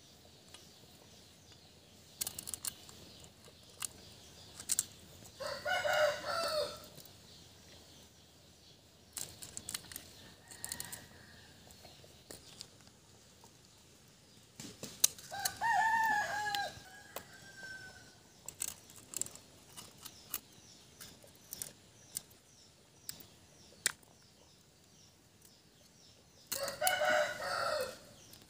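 A rooster crowing three times, about six seconds in, around fifteen seconds in and near the end. Between the crows come scattered sharp taps and cracks of an iron blade breaking open snail shells.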